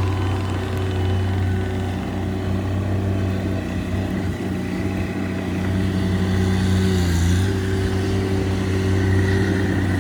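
A vehicle engine running steadily with a deep hum. Its pitch dips briefly about seven seconds in, together with a short hiss.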